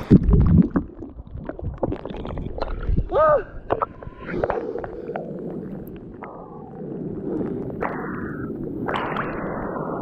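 Muffled underwater rush and gurgle as the camera dips below the river's surface at the start, then river water sloshing and gurgling against the camera at the waterline.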